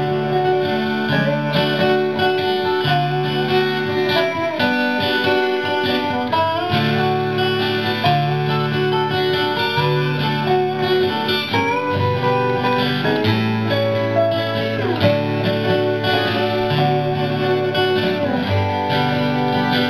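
Instrumental break on two strummed acoustic guitars with a Dobro resonator guitar played flat with a steel bar, its notes sliding up and down between pitches.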